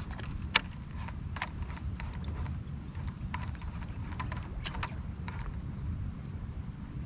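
Scattered light clicks and taps, about a dozen at uneven intervals and the sharpest about half a second in, over a low steady rumble.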